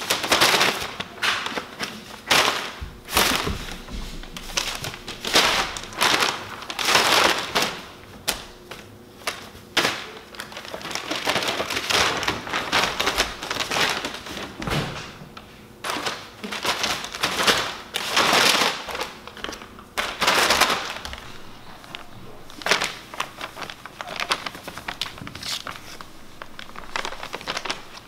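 Large sheets of brown kraft paper crinkling and rustling in repeated loud, irregular bursts as kittens pounce on, run across and slide on them.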